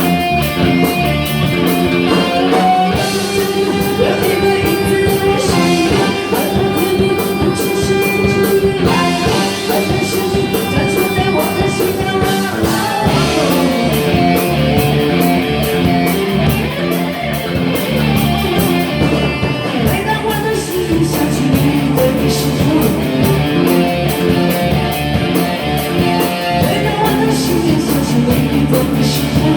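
Pop song music with guitar and a steady drum beat.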